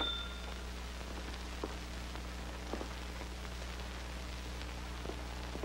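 A doorbell ringing steadily, cutting off about half a second in. After it there is only the old soundtrack's steady hiss and hum, with a few faint knocks.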